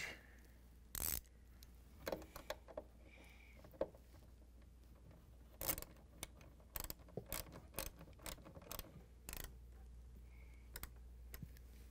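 Faint metallic clicks of a quarter-inch socket wrench tightening the screws at the bottom of a dishwasher door: a few single clicks at first, then a quicker run of clicks in the second half.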